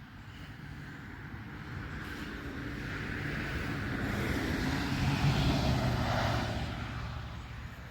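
A passing engine, growing steadily louder to a peak about five seconds in and then fading away.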